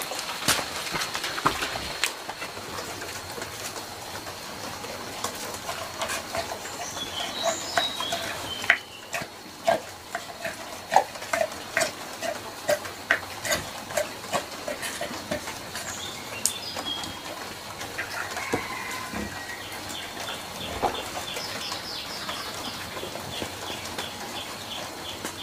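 Birds chirping, with repeated knocks and clicks throughout and a run of regular strokes about twice a second in the middle.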